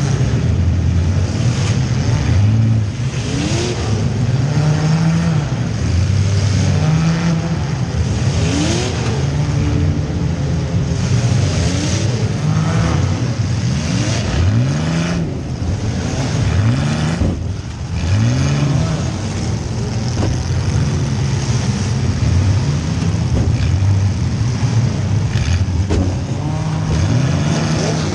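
Compact demolition derby car engines revving up and dropping back again and again, heard from inside one of the cars.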